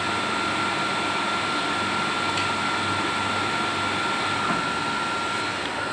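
Electric water pump motor running steadily as it builds pressure in the tank toward its 4 bar cut-out. A steady hum with a thin whine that stops shortly before the end.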